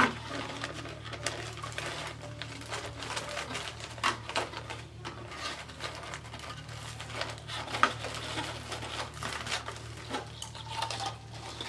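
Wide glitter ribbon rustling and crinkling as it is looped and pressed into a plastic bow maker, with many light clicks and taps from the ribbon and fingers against the tool. A steady low hum runs underneath.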